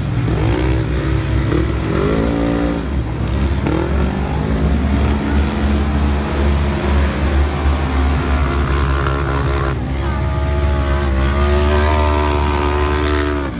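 Several UTV racing engines running hard together on a dirt flat track, their pitch rising and falling as they rev, over a steady low rumble. Near the end several engines overlap.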